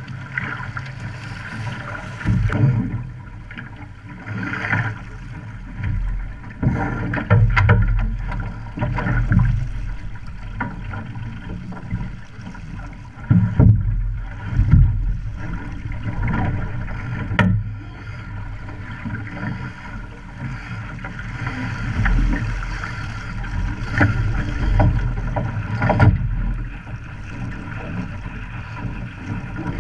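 Water rushing and slapping against an OK Dinghy's hull under sail, with wind buffeting the microphone. Irregular surges and sharp splashes of spray or hull slaps come every few seconds.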